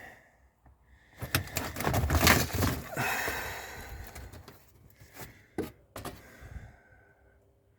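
Clattering and rustling of hard items being handled and moved about, loudest in the first few seconds, followed by a few separate sharp knocks.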